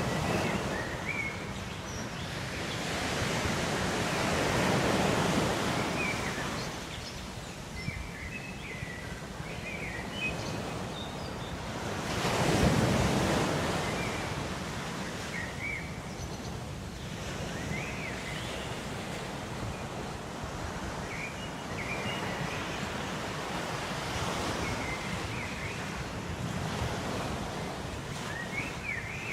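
Ocean waves washing onto a shore, the surf swelling and ebbing every several seconds, with the biggest swell about 12 seconds in. Faint short high chirps sound here and there over the surf.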